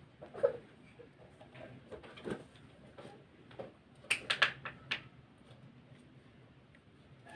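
Fabric handling: cotton appliqué cloth and nylon net rustling and scratching under the fingers, with scattered soft scrapes and a quick run of sharp ticks about four seconds in.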